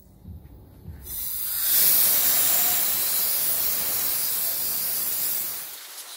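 Compressed-air blow gun hissing steadily as it blasts leftover bicarb soda dust off the motorcycle's frame and engine. It starts about a second in and cuts off abruptly near the end.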